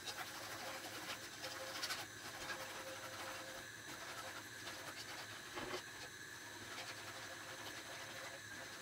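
Wire whisk stirring milk, water and sugar in an enamel saucepan, its wires scraping faintly against the pan with a few light clicks.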